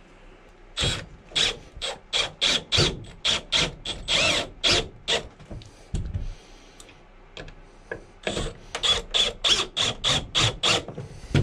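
Cordless drill-driver driving screws into a wooden ceiling strip, making rapid, evenly spaced clicks at about four a second. The clicks come in two runs, the first starting about a second in and the second about eight seconds in.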